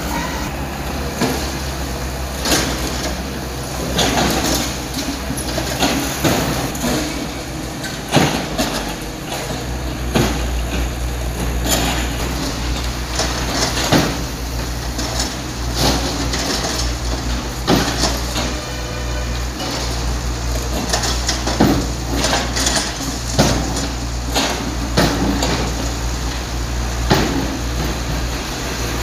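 Hydraulic excavator engine running steadily while its bucket breaks up a concrete building frame, with irregular knocks and crashes of falling concrete. The engine rumble grows louder about ten seconds in.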